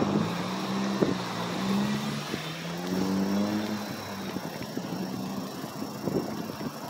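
A motor vehicle's engine running close by, a steady low hum whose pitch rises briefly about three seconds in, with a few faint knocks.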